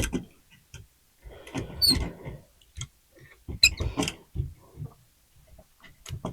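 Irregular clicks, knocks and scraping from hands and tools working on a light switch's wiring, with a couple of short high squeaks about two and four seconds in.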